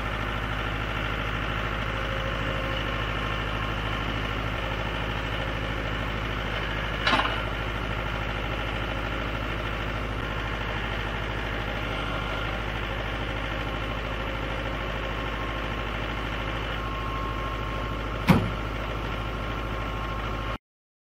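Mahindra 4540 tractor's diesel engine running steadily while the front loader lifts the pallet forks. Two sharp knocks sound through it, the louder one about 18 seconds in.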